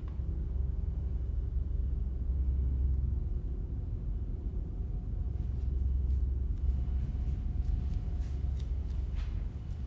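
A low, steady rumbling drone, the ominous sound bed of a horror film, with a faint thin tone above it and a few faint ticks in the second half.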